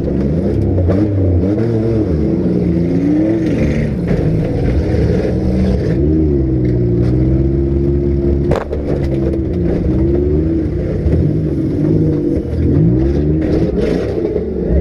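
Compact car engines revving up and down repeatedly in a demolition derby, several at once, with a sharp bang about eight and a half seconds in.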